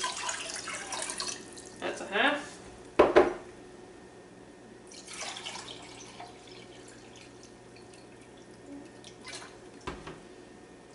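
White vinegar poured into a pot of water from a glass measuring cup, and the cup refilled from a plastic gallon jug: liquid splashing near the start and again about five seconds in. A louder knock comes about three seconds in.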